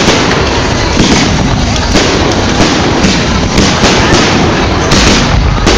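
Fireworks going off loud and non-stop: a dense run of bangs and crackling with no pause.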